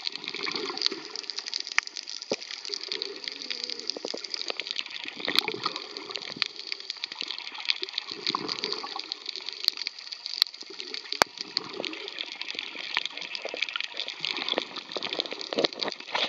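Underwater sound picked up through a camera housing: a steady crackling hiss full of tiny ticks, with dull whooshes of moving water every second or two and a few sharp single clicks. Near the end there is a gurgle of bubbles from a snorkeler swimming past.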